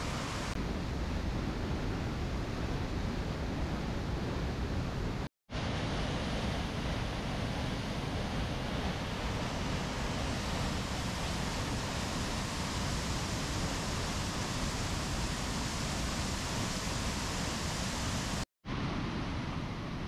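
Mountain waterfall crashing into a rocky pool, a steady full rush of falling water that breaks off for a split second twice.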